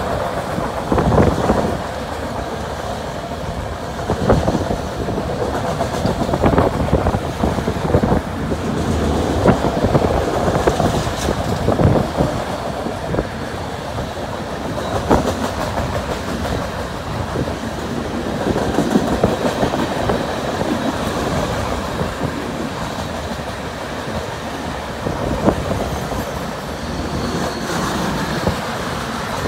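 CN freight train's autorack cars rolling past, a continuous rumble of steel wheels on rail broken by irregular knocks as the wheels cross rail joints.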